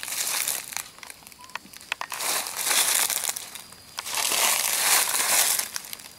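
Dry leaves crackling and crunching in two long bursts, about two seconds in and again about four seconds in, with a few sharp snaps between.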